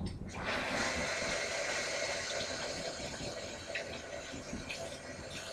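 Water running steadily from a kitchen faucet into a sink, starting about half a second in.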